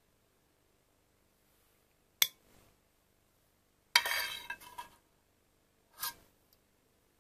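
Serving utensil knocking against dishes as beans are put onto a plate: a sharp clink about two seconds in, a clattering scrape lasting about a second around four seconds in, and another clink about six seconds in.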